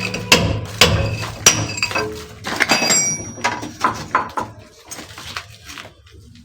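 Sharp knocks and clicks, about two a second at first, then irregular and fading, with a few glassy clinks about three seconds in.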